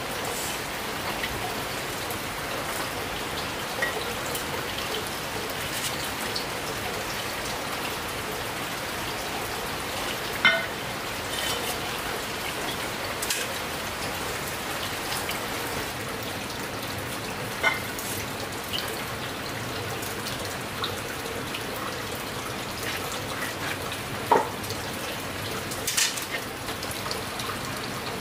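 Steady rain falling, with a handful of sharper taps standing out, the loudest about ten seconds in and again about twenty-four seconds in.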